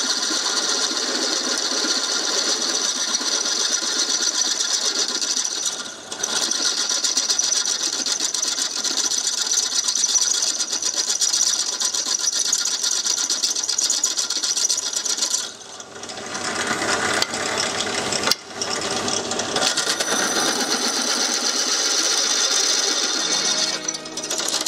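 A drill press running with its bit cutting into the metal flange of a VW Jetta Mk1 front wheel hub, enlarging a bolt hole. It is a steady, high whining grind that eases briefly about six seconds in and twice more about two-thirds of the way through.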